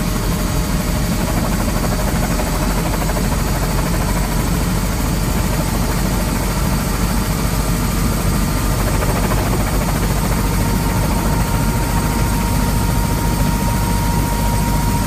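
Helicopter cabin noise in flight: the engine and rotor running steadily as a loud, low rumble with a thin, steady whine over it.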